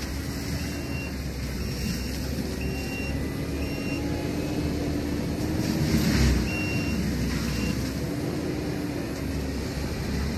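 Forestry mulching machine's engine running steadily, with a louder surge about six seconds in. A few short high beeps sound now and then.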